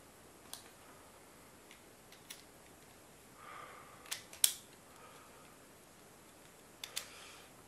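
Scattered sharp plastic clicks and taps as the clear plastic layers of a Raspberry Pi 4 case are handled and fitted together, about half a dozen in all, the loudest about four and a half seconds in, with faint handling rustle between.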